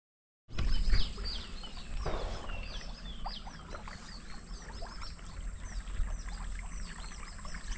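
Many small birds chirping and chattering in short, high, quick calls over a steady low rumble of wind or water. The sound starts after half a second of dead silence.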